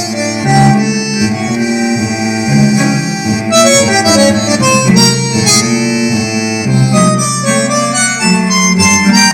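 Music played through a pair of Sven SPS-611S desktop PC speakers, with steady held notes over a prominent bass line, heard through a camera's built-in microphone.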